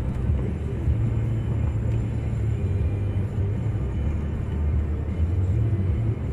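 Steady low rumble of a car driving on a slushy, snow-covered road, heard from inside the cabin: tyre and engine noise with no clear pitch.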